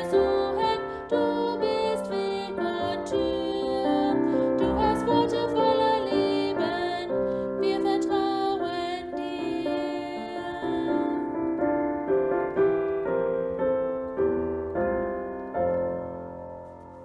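Piano music, slow chords and melody notes, dying away over the last few seconds as the piece ends.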